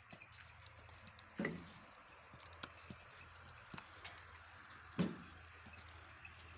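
Two dull knocks, about a second and a half in and again about five seconds in, with light scattered clicks and clinks between them over a faint steady background.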